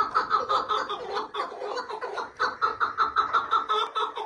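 Caged chukar partridge calling: a fast, unbroken run of chuckling notes, several a second.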